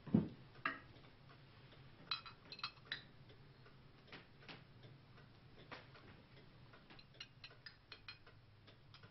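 Faint, irregular clinks and taps of a glass carafe and small glasses as liquor is poured at the table, over a low steady hum. The clicks come in a small cluster about two to three seconds in and more closely together near the end.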